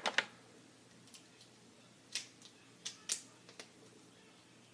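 A handful of small, sharp clicks from a Swiss Army knife being handled. They come about two seconds in, spread over a second and a half, as a fingernail tries to pry out a stiff tool that won't come out.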